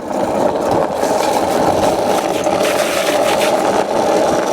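Homemade go-kart made from household items under way, giving a steady, loud rattling and scraping running noise.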